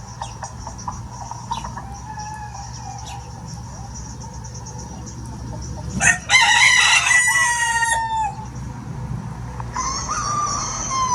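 Roosters crowing: one loud crow about six seconds in, its long last note sliding down in pitch, and a second, quieter crow starting near the end, with short scattered clucks from the flock before them.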